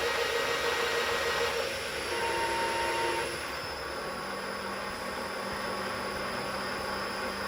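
New metal lathe running at high spindle speed during its first run, the gearbox and chuck giving a steady whirring hiss. About three seconds in the sound drops to a quieter steady hum as the speed is brought down.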